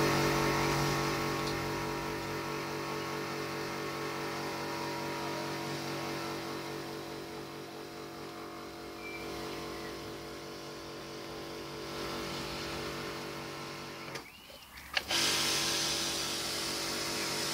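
Kärcher electric pressure washer running steadily, its motor and pump humming under the hiss of water jetting from a patio-cleaner disc onto concrete. About fourteen seconds in the motor cuts out for about a second, then starts again with a click.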